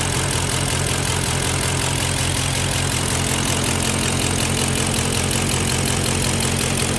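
Engine idling with a rapid, regular tick from the valvetrain and a misfire on cylinder 3. The tick is not cured by Seafoam and Rislone, and the owner suspects a bent valve.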